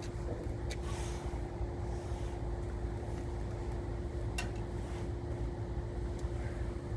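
A steady low rumble with a constant faint hum, broken by a few light clicks.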